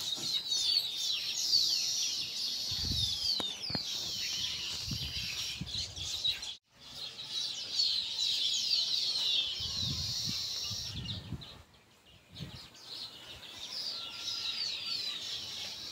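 Many small birds chirping together in a dense chorus of quick, downward-sliding chirps, with a few low thumps underneath. The chirping cuts out briefly about six and a half seconds in and again around twelve seconds.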